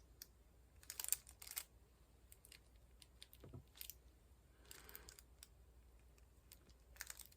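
Faint, scattered clicks and taps of a diamond painting pen pressing square resin drills onto the canvas, with a brief soft rustle about halfway through.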